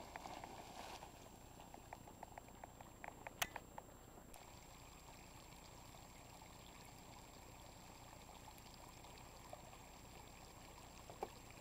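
Faint bubbling and trickling of water from a steaming geothermal hot spring, with a run of small pops about two to four seconds in and one sharp click among them.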